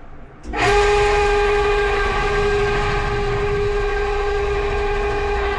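Electrolux clothes dryer starting up about half a second in: the drum running with a low rumble and a steady high-pitched squeal over it. This is the abnormal noise the new dryer developed.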